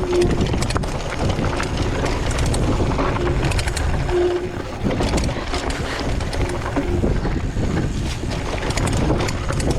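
Wind buffeting the camera's microphone and tyres rolling over dirt trail as a Vitus Sentier hardtail mountain bike descends, with frequent rattling clicks from the bike over bumps.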